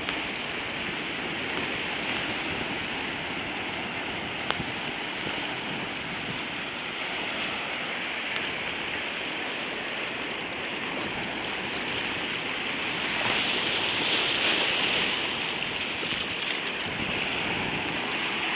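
Small waves of surf washing in at the shoreline as a steady hiss, swelling louder for a couple of seconds about two-thirds of the way through.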